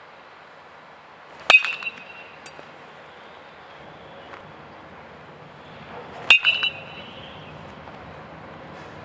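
Two baseball hits off a metal bat about five seconds apart, each a sharp ping that rings briefly.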